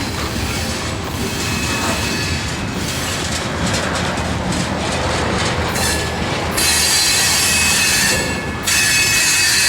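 Freight train cars rolling past, the wheels clicking over rail joints. About two-thirds in, a high steady wheel squeal starts up and gets louder. It drops out briefly near the end, then comes back.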